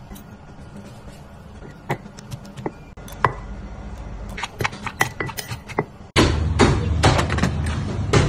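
A metal spoon clinking and tapping against a stone mortar as salad is mixed in it: a scatter of sharp clicks and knocks, some briefly ringing. About six seconds in, a louder steady low hum starts abruptly, with more knocks over it.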